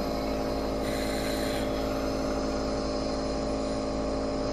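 Nebulizer air compressor running during a breathing treatment, a steady, even hum.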